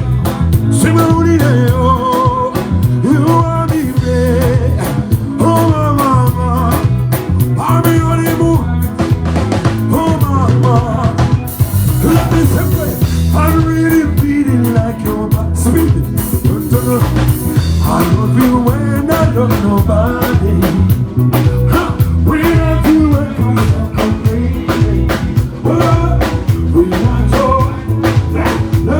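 Live band music with a steady drum beat and bass under melodic guitar lines.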